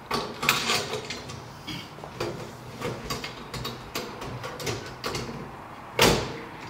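Stainless steel quick-release clamp band being fitted around a sifter's lid rim: repeated metal clicks and clinks, with one louder clunk about six seconds in.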